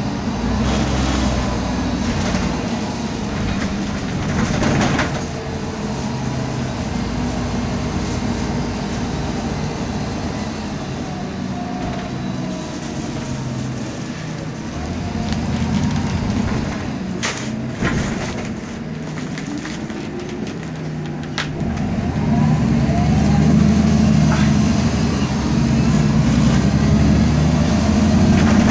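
Inside the cabin of a 2010 MAN Lion's Classic city bus on the move: its CNG engine and driveline run with the noisy differential whine. The running grows louder about two-thirds of the way through as the bus picks up speed, and a few sharp rattles come a little past halfway.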